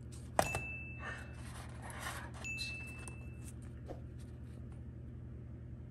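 A click, then two steady electronic beeps about a second long each, a second apart, over a steady low hum.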